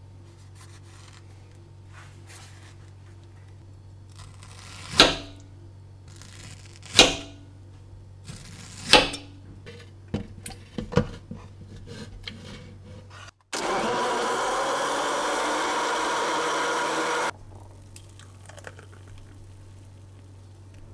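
Countertop blender blending peach with milk and yogurt, running at a steady pitch for about four seconds and then cutting off sharply. Before it come three loud knocks about two seconds apart, followed by a few lighter clicks.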